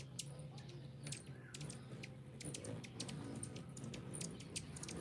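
Faint, irregular high-pitched ticks and chips, many per second, typical of hummingbirds squabbling at feeders on the window, over a low steady hum.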